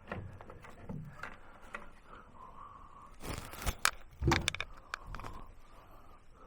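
Scattered knocks and clatter of hands-on building work, with a louder cluster of sharp knocks about three to four and a half seconds in.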